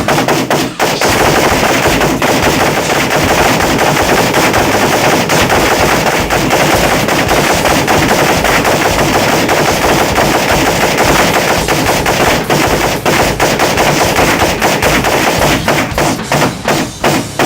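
Rapid, sustained rifle fire from 7.62×39 mm Kalashnikov-pattern rifles, a Yugo M72 RPK and a WASR-10 AK-47, shot after shot with no pause as 75-round drums are emptied. It thins into separate, spaced shots near the end.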